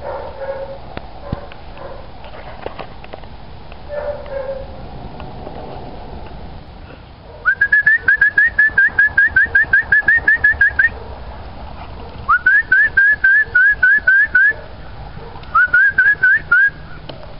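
A bird calling close by: quick, loud rising chirps, about six a second, in three bouts starting about halfway in. Before that only faint, scattered sounds.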